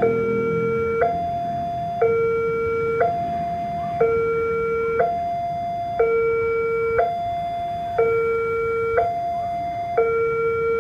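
Railway level crossing warning alarm sounding from the loudspeaker on the signal pole. It is a two-tone electronic signal switching back and forth between a lower and a higher tone, each held about a second, warning that a train is approaching.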